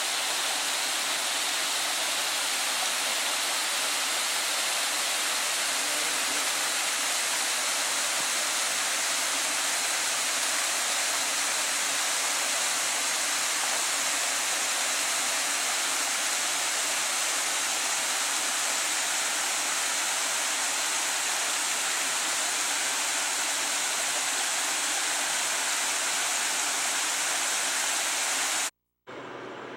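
Little mountain creek flowing: a steady, even rush of water that cuts off suddenly near the end.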